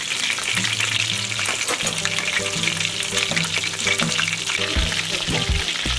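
Breaded chicken breasts frying in hot oil in a stainless steel pan: a steady, dense sizzle and crackle of the bubbling oil.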